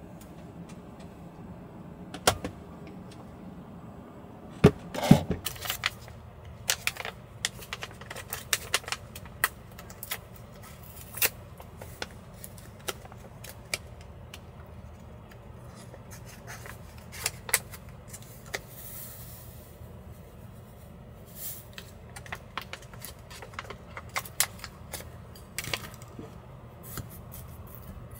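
Small objects being handled and set down: scattered clicks, clinks and clatters, the loudest cluster about five seconds in, over a low steady hum.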